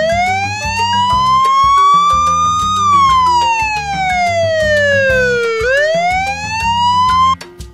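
Police car siren wailing: a slow rise in pitch over about three seconds, a fall over the next three, then another rise before it cuts off suddenly near the end. Background music with a steady beat runs underneath.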